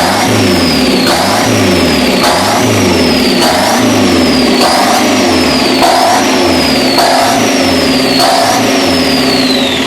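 Newly built engine in a 1987 Dodge Daytona Shelby Z running and revving up and down in a regular cycle, about once a second. It is running on a massive vacuum leak: two unplugged holes in the intake plenum.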